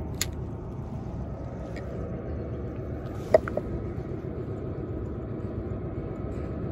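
Steady low rumble of wind and background noise across the water, with a faint tick near the start and a sharp click from the fishing tackle, ringing briefly, about three and a half seconds in, followed by a smaller click.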